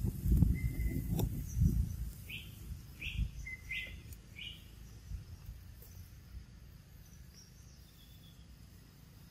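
Low rumbling bumps in the first two seconds, then four short high chirps about three-quarters of a second apart, over faint outdoor background.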